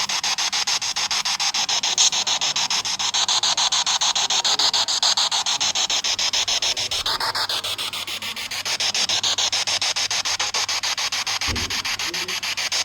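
Spirit box sweeping through radio stations: a continuous, rapidly chopped hiss of static. About halfway through a brief tone rises and falls, and there is a short low thump near the end.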